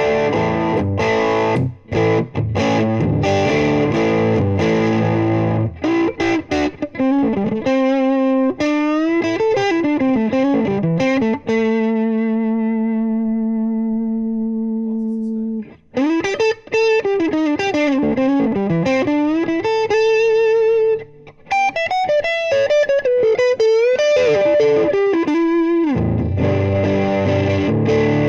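Electric guitar, an Oscar Schmidt OE20 Les Paul copy with humbucking pickups played through a VOX VT40X amp on a crunchy VOX AC30-type setting. It opens with distorted strummed chords, moves into single-note blues-rock lead lines with string bends and vibrato, including one long sustained note, and returns to chords near the end.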